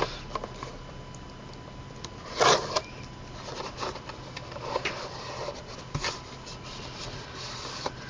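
Heavy paper rustling and scraping in a few short bursts as it is folded and pressed down around a chipboard panel by hand; the loudest comes about two and a half seconds in. A faint steady hum runs underneath.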